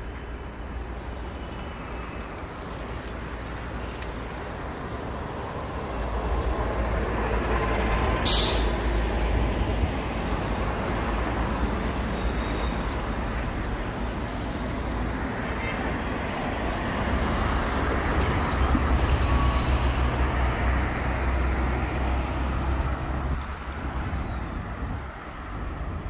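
City street traffic with heavy vehicles passing close by in a steady rumble that grows louder after about six seconds. A short sharp hiss of air, like a bus's air brake, cuts in about eight seconds in, and a thin high whine runs faintly through the second half.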